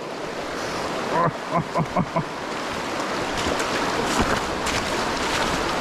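Shallow creek water rushing over stones in a riffle, a steady hiss, with a few brief murmured syllables about a second in and scattered clicks near the end.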